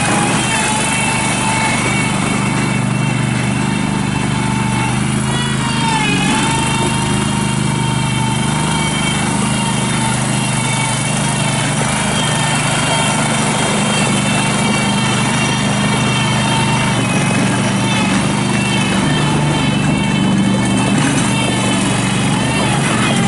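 The Kohler 20 horsepower V-twin gas engine of a Terramite T5C compact backhoe loader running steadily. Its pitch dips briefly about six seconds in and again near the end.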